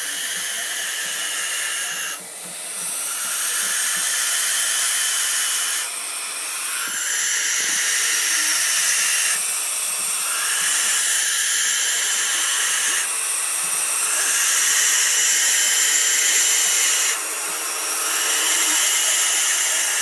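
Barn owls hissing: long, loud, rasping hisses from more than one bird that overlap almost without a break, dipping briefly every three to four seconds. The hissing is a reaction to a person close to them and stops when she leaves.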